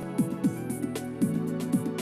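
Instrumental background music with a regular beat.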